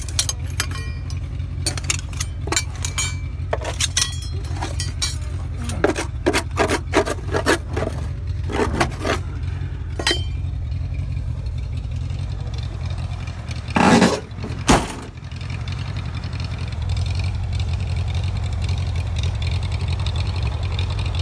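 A motor vehicle engine running steadily, with a run of clanks, rattles and scrapes over it for the first ten seconds or so, and a louder clatter about fourteen seconds in.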